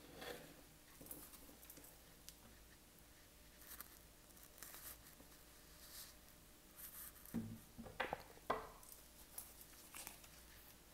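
Near silence broken by faint, scattered rustles and light taps of cards and small objects being handled on a wooden table, with a few louder soft knocks between about seven and eight and a half seconds in.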